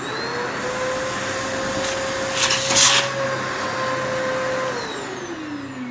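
Vacuum cleaner with a transplanted motor switched on, its whine rising quickly to a steady pitch; about two and a half seconds in, a brief louder rush as sawdust is sucked up the hose. Near the end it is switched off and the whine falls as the motor spins down.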